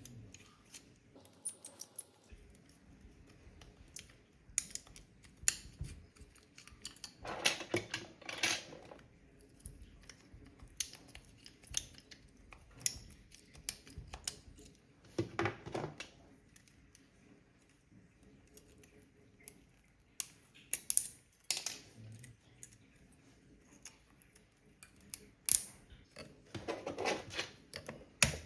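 Hand work on a Ryobi power-tool battery pack: scattered sharp clicks and snips, with a few longer scraping sounds of about a second each, from tools on plastic and metal.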